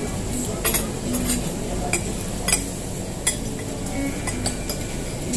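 Cutlery and dishes clinking: several sharp clinks of metal utensils against plates, over the steady background din of a restaurant dining room.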